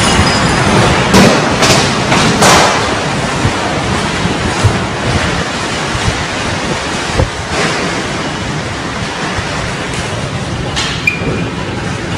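Strong wind rushing and buffeting the microphone in a tornado storm, a dense steady roar of noise with a few sharp knocks, easing slightly toward the end.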